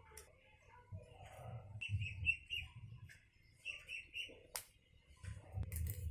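A small bird chirping in quick runs of three or four short notes, twice, over a low rumble.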